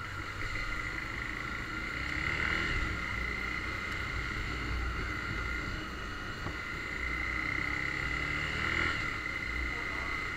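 Honda CBX 250 Twister's single-cylinder engine with its stock exhaust running as the motorcycle rides in traffic, with a steady whine over a low rumble, heard through an action camera's built-in microphone. The engine swells briefly twice, about two and a half seconds in and near the end.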